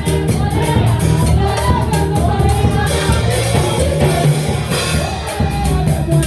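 Gospel worship song with a singing voice over a band, a steady drum beat keeping time.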